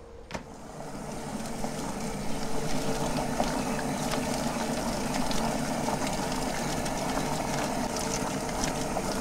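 Drum-style poultry plucker running with quail inside: its electric motor spins the rubber-fingered drum with a steady hum, while water from a hose shower nozzle hisses into it. A sharp click about half a second in, then the sound builds over the next two seconds and holds steady.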